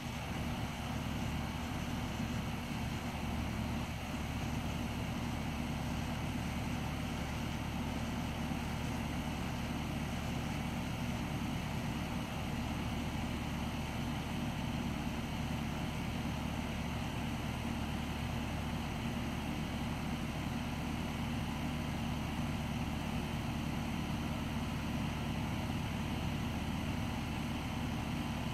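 Yaesu G-5500 azimuth-elevation antenna rotator's motors running, a steady unbroken hum as they turn and tilt the antenna array.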